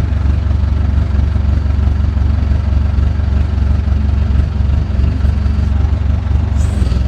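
JCB backhoe loader's diesel engine running steadily, a constant low drone.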